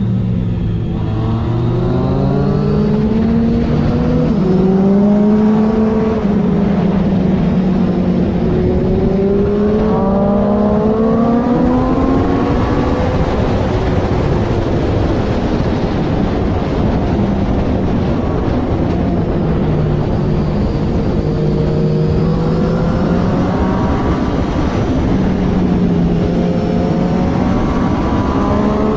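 Triumph Daytona 675R's three-cylinder engine running hard on track: its pitch drops sharply about a second in, then climbs and levels off again and again as it pulls through the gears, over a steady rushing noise.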